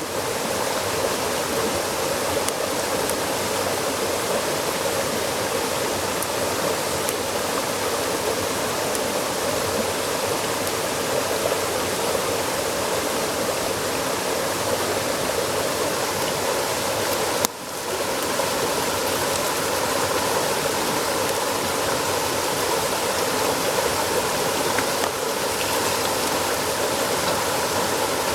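Steady rushing noise like flowing water, with one brief dip past the middle.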